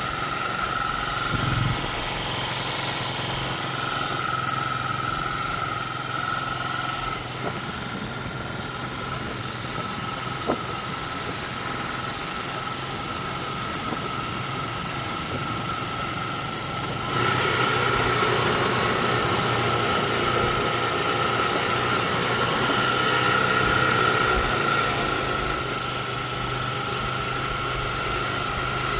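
An engine running steadily, with a steady low hum and a thin high whine over it; about seventeen seconds in, the sound steps up abruptly to louder and brighter.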